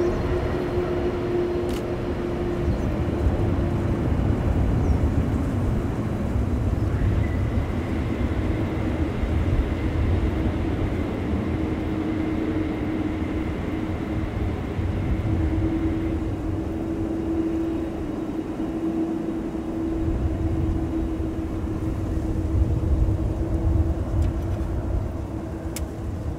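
Boeing 747-400's jet engines running at low power as the airliner taxis and turns on the runway: a steady rumble with a low hum, and a high whine for several seconds near the middle.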